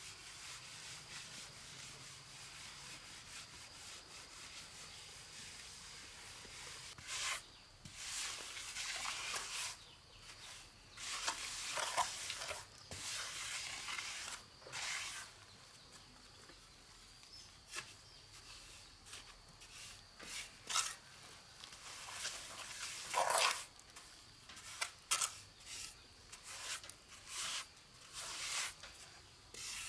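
Hand tool scraping and rubbing through wet cement mortar in irregular strokes, some about a second long and others short and sharp, starting about seven seconds in.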